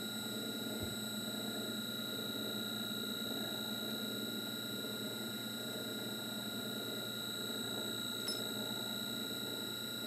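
Small metal lathe running steadily with a tool cutting a 45-degree chamfer in the bore of a model engine head, a steady high-pitched whine over a low running hum.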